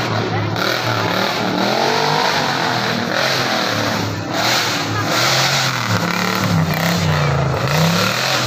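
Off-road 4x4 competition vehicle's engine revving up and down repeatedly, with its pitch rising and falling as it works through the course.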